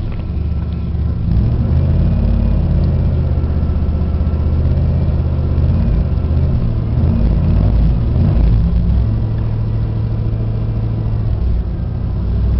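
Cadillac STS engine and exhaust running, with the engine speed picking up and easing off a few times, then holding at a steady, lower note for the last few seconds.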